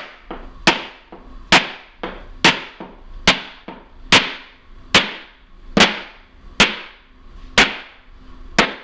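Hammer blows on the particle board panel in a wooden table-top frame, a strong knock about once a second with lighter taps between, knocking the board loose from the frame where it is held with silicone.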